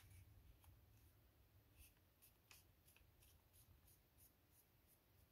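Faint, irregular crinkles and soft ticks of origami paper being folded and creased by hand, over a low steady hum.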